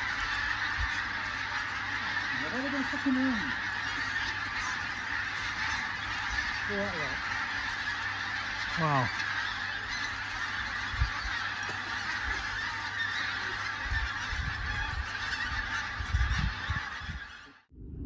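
A huge flock of pink-footed geese calling in flight overhead: a dense, continuous chorus of many overlapping honks. The chorus cuts off suddenly just before the end.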